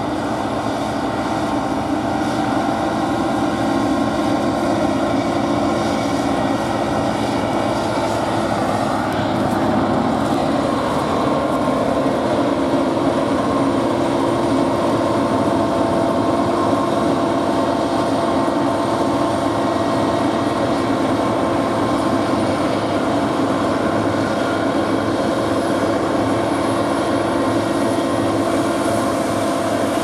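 Claas Lexion combine harvester at work: a steady drone from its diesel engine and threshing machinery, with a few held humming tones in it, getting a little louder over the first few seconds.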